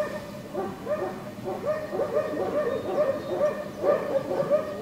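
A dog giving rapid, high-pitched excited yelps, several a second, in runs with short breaks.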